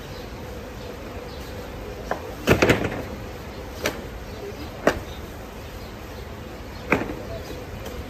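Hands slapping and patting large thin roti sheets flat onto a stacked pile on a wooden table: about seven sharp slaps at irregular intervals, three in quick succession about two and a half seconds in.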